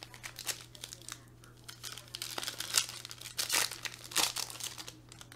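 Foil wrapper of a 2019 Topps Tier One trading-card pack being torn open and crinkled by hand, in irregular crackling bursts that are loudest around the middle.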